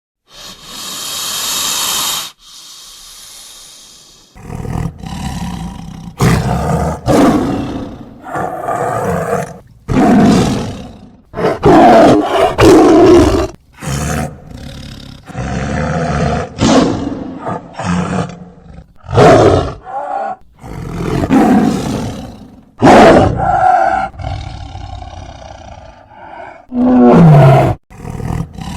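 A big cat roaring over and over, in a long series of loud calls about a second or two each with short breaks between them. The series opens with about two seconds of hissing, and near the end one call falls in pitch.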